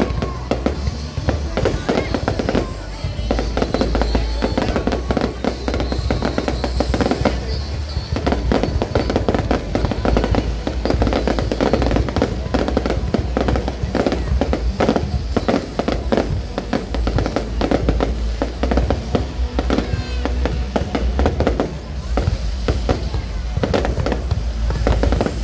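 A fireworks display going off: a dense, continuous barrage of bangs and crackling over a deep rumble, with music mixed in.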